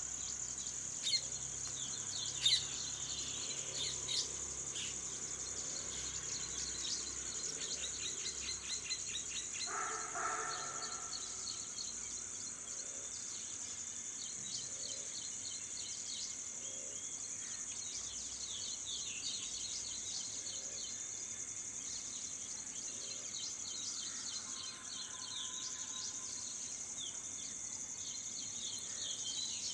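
Steady, high-pitched drone of insects such as crickets, with many short bird chirps throughout. About ten seconds in comes a lower call lasting a second or so, and there are a few sharp clicks in the first few seconds.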